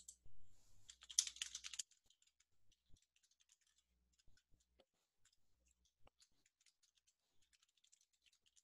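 Faint computer keyboard typing: a quick run of keystrokes about a second in, then scattered light key clicks.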